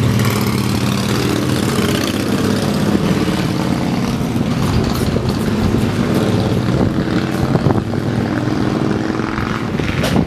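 A steady, loud low mechanical drone, like a motor running, with a few pitch lines that drift slightly up and down.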